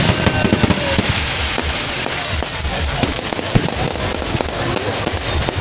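Aerial fireworks bursting into crackling stars: a dense, continuous crackle of small pops over repeated low thuds.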